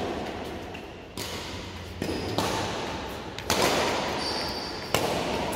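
Badminton rackets striking a shuttlecock in a rally, four sharp hits about a second apart, each ringing on in the reverberant hall.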